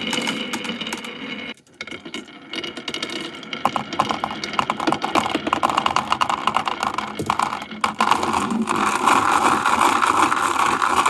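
Many marbles rolling and clattering down a wooden marble run, a dense stream of small clicks and ticks that grows louder about eight seconds in.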